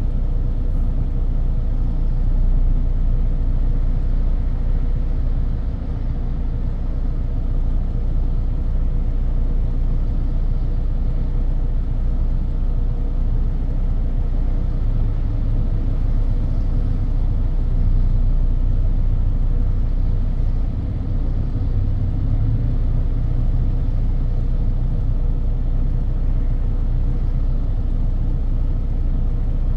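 Car driving on a highway: a steady low rumble of tyre and engine noise, with a faint steady hum on top.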